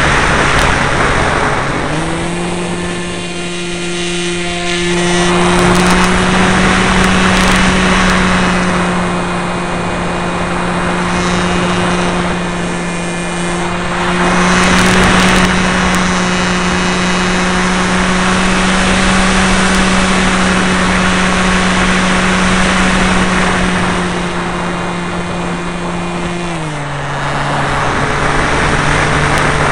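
RC plane's motor picked up by the onboard camera, a steady tone that steps up in pitch about two seconds in as the throttle opens, holds, and steps back down near the end. Wind rushing over the microphone swells and fades several times.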